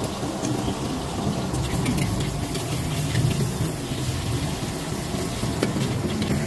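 An egg frying in hot oil in a wok: a steady sizzle over a low, even rumble, with a few light scrapes and taps of a metal spatula on the pan.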